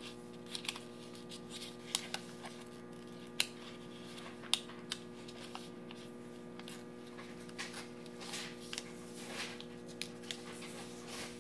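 Colored origami paper rustling and crinkling as fingers fold and press creases into it, with sharp little crackles at several points, over a steady low hum.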